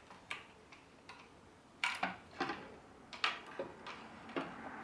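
Light, irregular metallic clicks and taps of small automatic transmission parts being handled and fitted together, about a dozen separate clicks, the loudest about two and three seconds in.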